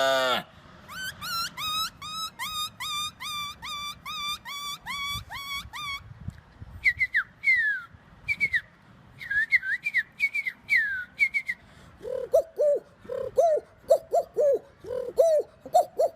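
A man imitating birds with his mouth: a run of whistled calls that rise and fall, about two a second, then sharp clicks mixed with short falling chirps, and in the last few seconds a lower, repeated dove-like cooing.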